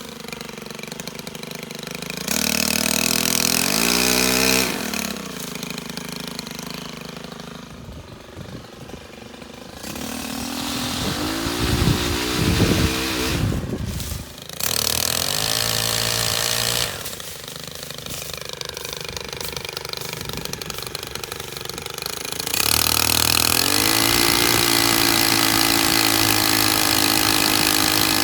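STIHL KM 131R gas power head driving a pole saw. The engine is revved up to high speed in several bursts and drops back to idle between them. The longest burst comes near the end.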